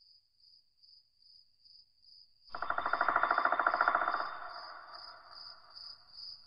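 Cricket chirping steadily in high, even pulses, two or three a second. About two and a half seconds in, a louder, rapidly pulsing sound with several pitches comes in and fades away over about two seconds.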